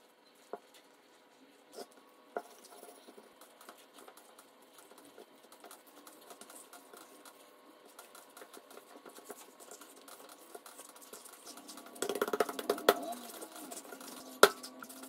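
Hands kneading a medium-firm flour dough, soft squishing and patting with scattered small clicks, first in a glass bowl and then on a silicone baking mat. It grows louder near the end, with one sharp knock as the dough is worked on the mat.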